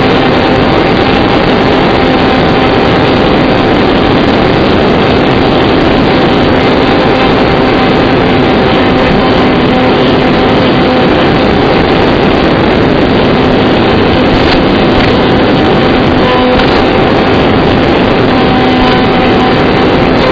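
RC flying wing's electric motor and propeller running steadily in flight under a loud, even rush of wind noise, with a few steady whine tones on top.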